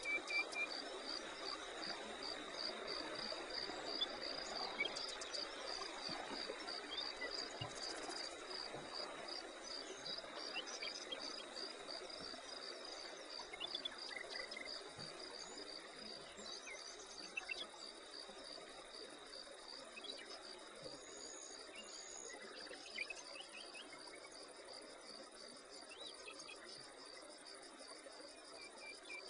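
Insects chirping in a steady chorus: a rapid, even pulse of high chirps over a continuous high buzz, with a soft background hiss.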